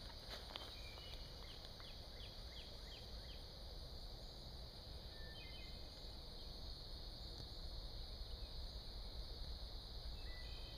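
Outdoor garden ambience: a steady high-pitched insect drone, with a bird giving a quick run of short falling notes starting about a second in and a few brief chirps later.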